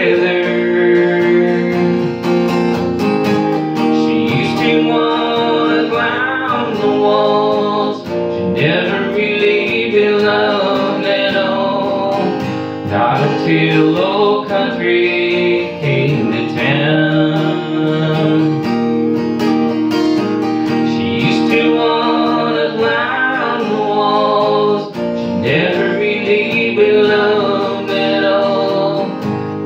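Acoustic guitar strummed in a steady country rhythm, with a man singing along.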